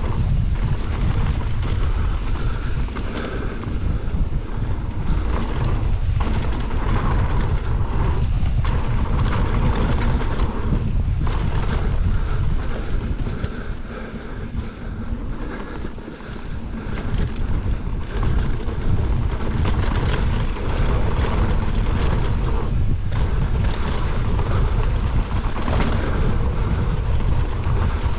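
Heavy wind buffeting on the microphone during a fast mountain-bike descent, over tyre noise on the dirt trail and knocks from the bike, easing briefly about halfway through.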